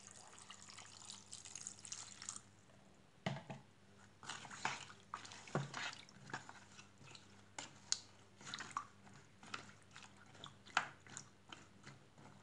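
Water pouring from a plastic jug into a saucepan of vegetables for about two seconds and then stopping. A plastic utensil then stirs the pot, with irregular clicks and knocks against the pan and small sloshes of water.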